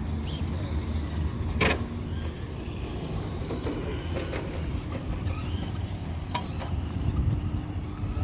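Team Associated DR10 radio-controlled drag car driving along a concrete sidewalk, its electric motor giving faint short rising whines over a steady low rumble. There is one sharp click about a second and a half in.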